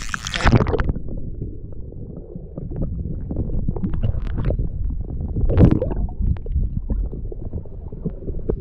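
A camera plunging under the lake surface, then water sounds heard under water: a muffled low rumble with scattered knocks, the loudest about five and a half seconds in.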